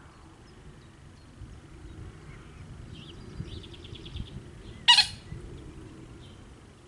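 Wild birds calling at a pond: faint chirps and a quick trill, then one short, loud, harsh call about five seconds in, over a low steady rumble.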